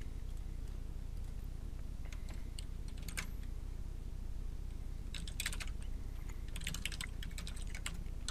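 Typing on a computer keyboard: a few scattered keystrokes, then a quicker run of keystrokes in the second half, over a low steady hum.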